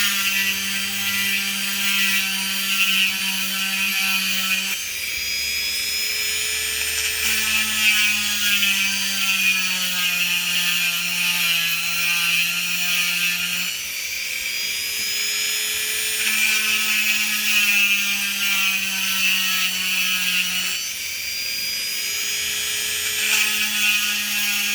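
Handheld rotary tool with a diamond bit drilling into a citrine crystal under water: a steady motor hum with a grinding hiss. Its pitch sags and recovers several times as the bit is pressed into the stone and eased off.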